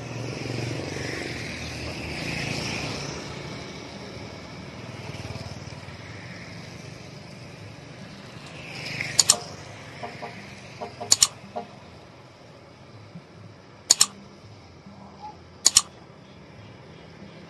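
Street traffic on a wet road, with motorbikes passing. In the second half come four sharp double clicks, the loudest sounds here: mouse-click sound effects from a like-and-subscribe button animation.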